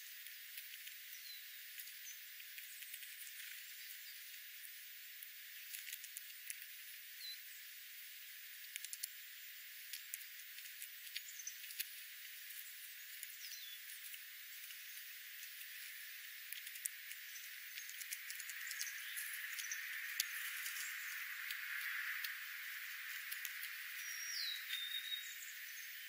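Scrub jays and other songbirds pecking and rummaging in seed on gravel: many small sharp clicks and ticks, with a few brief high chirps and one falling call near the end. The sound is thin, with its low end filtered away.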